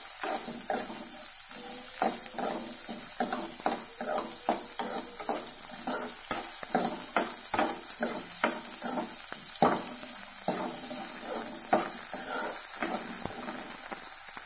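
Steel ladle stirring sliced onions, green chillies and whole spices as they fry in oil in a kadai: irregular scrapes and knocks of the ladle against the pan, several a second, over a steady sizzle.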